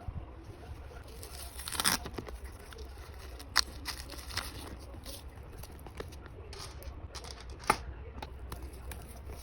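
Plastic packaging rustling and crinkling as a handbag is unwrapped, with a louder tearing rustle about two seconds in and two sharp clicks, one near the middle and one near the end.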